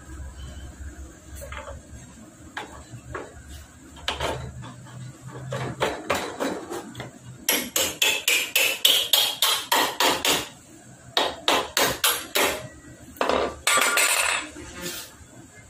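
Hammer blows on metal at a motorcycle's front wheel axle, in three quick runs of about four strikes a second, each with a short metallic ring.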